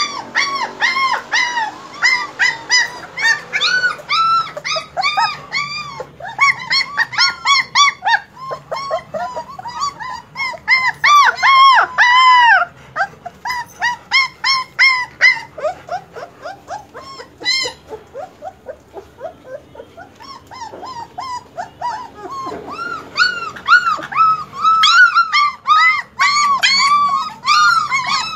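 German Shepherd puppies yipping and whining in a rapid run of short, high-pitched yelps, several a second. The calls ease off for a few seconds around the middle and come loudest shortly before that and again near the end.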